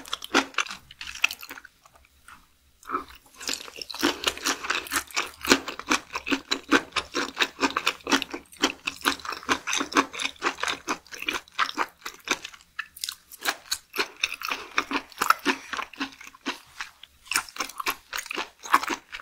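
Close-miked chewing of crunchy raw seafood: rapid, rhythmic crunches, with brief pauses about two seconds in and again past the middle.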